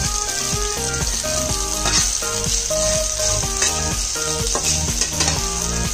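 Vegetables and half-cooked noodles frying in a hot wok with a steady sizzle, stirred with a metal spatula that scrapes the pan a few times.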